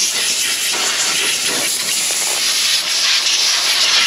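Compressed-air blow gun with a long nozzle blasting rust dust out of a truck's steering knuckle hub bore: a loud, continuous hiss with short dips.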